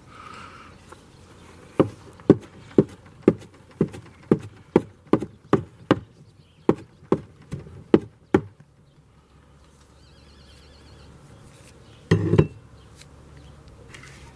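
Cleaver-style knife chopping fresh herbs on a plastic cutting board: about fifteen sharp chops at roughly two a second, then a pause and one louder knock near the end.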